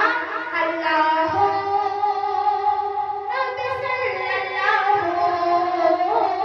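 A woman singing a Bangla gojol, an Islamic devotional song, holding long notes with ornamented turns in the melody.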